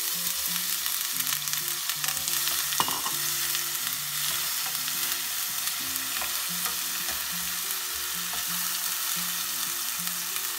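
Diced tomatoes sizzling and frying in hot oil with cumin seeds in a nonstick pan, stirred with a silicone spatula. There is a single sharp knock about three seconds in.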